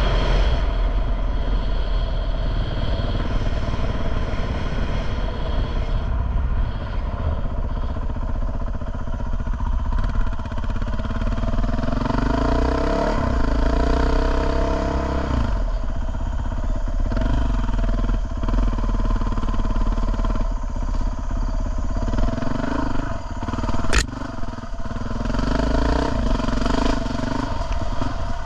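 Dirt bike engine running while riding, its pitch rising and falling with throttle and gear changes, over a steady low rumble of wind on the microphone. A single sharp knock about 24 seconds in.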